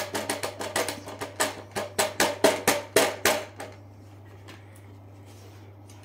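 Plastic cyclonic dust bin of a Numatic Airo bagless vacuum being tapped and knocked repeatedly to shake the dust loose: quick sharp knocks, several a second, spacing out and stopping a little past halfway.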